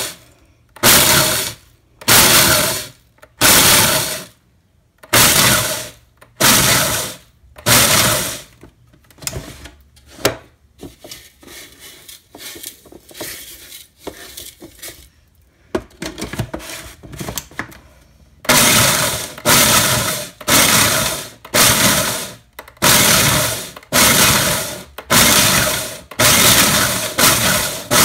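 Food processor pulsing in bursts about once a second, its blade smashing baked eggshells into coarse grit with a crunching rattle. After about nine seconds the pulsing stops for a quieter stretch of shells clattering as they are stirred by hand in the open bowl. The pulsing then resumes and ends in a longer continuous run.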